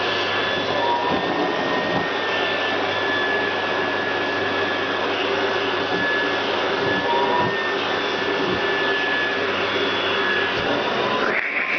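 Vacuum cleaner running steadily, its nozzle worked over a cat's fur, with a faint wavering whistle over the suction noise. Near the end the low hum briefly drops out and the whistle rises in pitch, as when the nozzle is pressed close and the airflow is choked.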